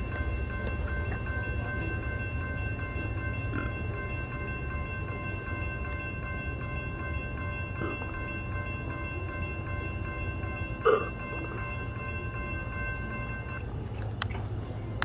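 Railroad crossing signal bell ringing steadily over a low rumble, then falling silent near the end as the crossing clears. A single sharp clank cuts through a little past two-thirds of the way in.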